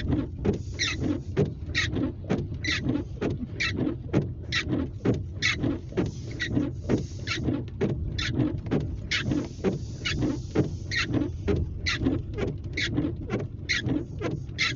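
Car windshield wipers squeaking across a wet windshield in a regular rhythm, about two squeaks a second, over the low hum of the car.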